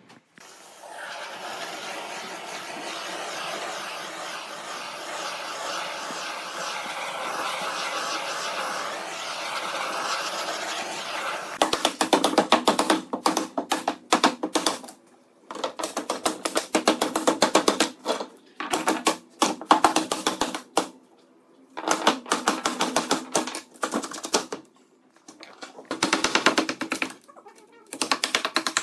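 A machine runs with a steady noisy sound for about ten seconds. It is followed by repeated bursts of rapid clattering, each lasting a second or two, with short pauses between.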